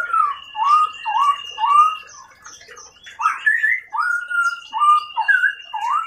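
Domestic canary singing: a string of looping whistled notes, about two a second, then after a short pause a faster, more varied run. A high, steady whistled note is held over parts of it.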